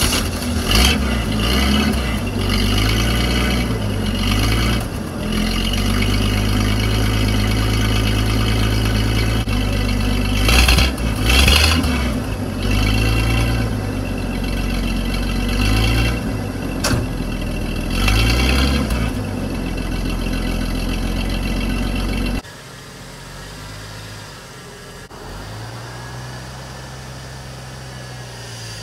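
1974 Ford F-250's 4.9-litre straight-six running with its exhaust blipped up and down again and again, heard close at the tailpipe. About 22 seconds in it drops suddenly to a fainter, more distant sound, still revving now and then.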